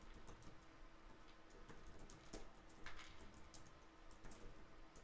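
Faint computer keyboard typing: irregular key clicks with short pauses.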